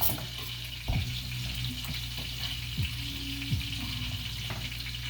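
Monkfish pieces sizzling steadily in butter in a frying pan, with a few light knocks about one second in and again near three and three and a half seconds.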